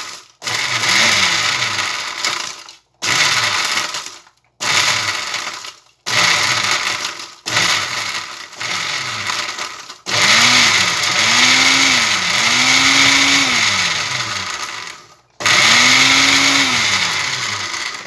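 Walita Delta Selector blender grinding dry bread chunks into breadcrumbs, worked in about six short pulses of a second or two, then run for about five seconds and again for a couple of seconds. The motor's pitch rises and falls within each run.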